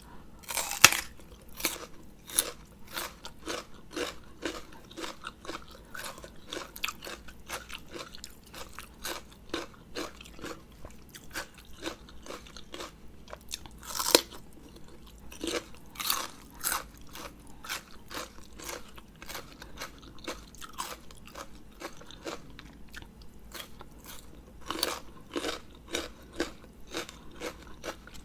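Close-miked chewing and crunching of a spicy rice-noodle salad, a steady run of sharp crunches and wet mouth sounds, with louder bites about a second in and near the middle.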